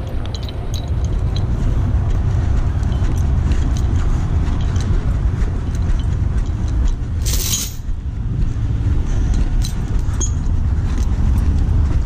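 Heavy truck's diesel engine idling, a steady low rumble, with scattered light clicks and clinks and a short hiss about seven seconds in.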